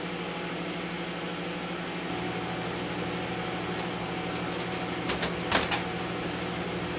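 Shop dust collector running with a steady hum. A few sharp clicks a little after five seconds in.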